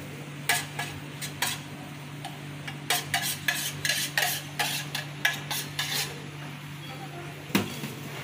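A metal spoon scraping and clinking against a stainless steel food pan while sauce is scooped out for a pizza. About a dozen short, irregular strokes sound over a steady low hum.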